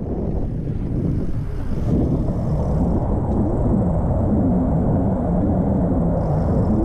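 Wind rumbling over an action camera's microphone while a 2017 Specialized Stumpjumper mountain bike rolls down a dirt singletrack, its tyres crunching and the bike rattling over the ground. The sound is a steady, loud low rumble.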